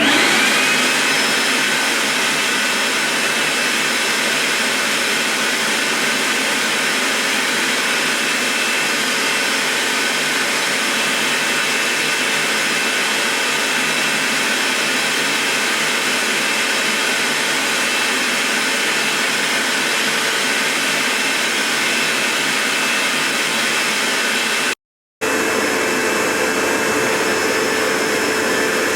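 Vax HF1400 carpet washer's suction motor switched on, whining up to speed in the first second, then running steadily while washing carpet. It breaks off for a moment about 25 seconds in and carries on with a slightly different tone.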